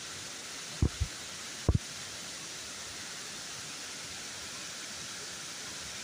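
Steady hiss of a rain-fed waterfall, with a few brief soft knocks in the first two seconds.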